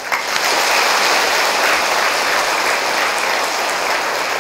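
Audience applauding: many hands clapping together, starting abruptly and keeping up steadily.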